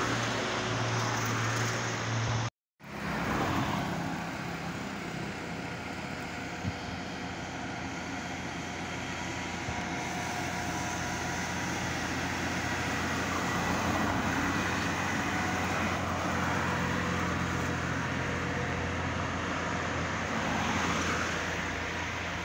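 Heavily loaded truck's diesel engine running steadily as it drives past, with tyre and traffic noise swelling as vehicles go by. The sound cuts out for an instant about three seconds in.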